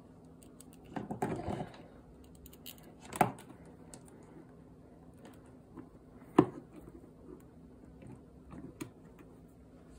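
Scattered clicks and light knocks of test leads, alligator clips and a small signal generator being handled on a desk, the sharpest knock about six and a half seconds in. A faint steady hum runs underneath.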